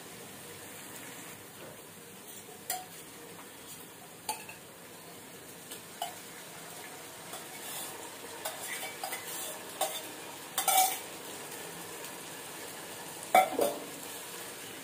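Onion-tomato masala sizzling in hot oil in a nonstick pot, with scattered knocks and scrapes of a wooden spatula and a steel cup against the pan as curd is added. The loudest knocks come near the end, while the curd is stirred in.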